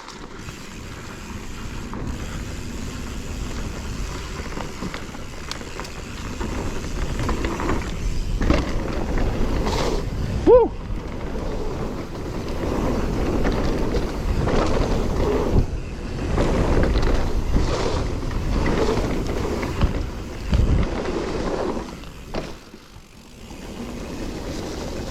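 Mountain bike descending dirt singletrack at speed: wind rushing over the microphone, tyres on dirt and the bike rattling over bumps, with a few sharp knocks from hits or landings. A rider shouts "Woo!" about ten seconds in.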